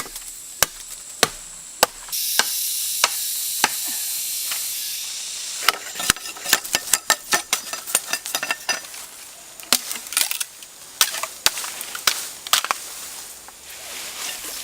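Knife chopping on a cutting board: sharp, evenly spaced cuts at first, then a quicker, irregular run of cuts, with a steady hiss for a few seconds early on.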